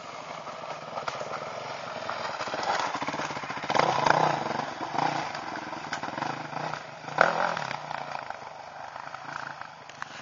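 Enduro motorcycle engine revving as the bike climbs a trail and passes close, loudest about four seconds in, then fading as it rides away. A single sharp knock about seven seconds in.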